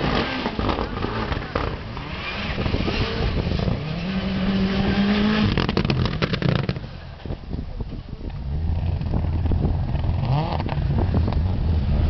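Subaru Impreza rally car's turbocharged flat-four engine at full stage pace on gravel, revs climbing hard through the gears. A quick run of sharp cracks comes about six seconds in, the engine note drops briefly, then it picks up again with the revs rising near the end.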